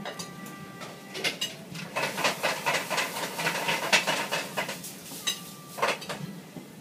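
Dishes and cutlery clattering: a run of quick clinks and knocks through the middle, with a faint steady high tone at the start and again near the end.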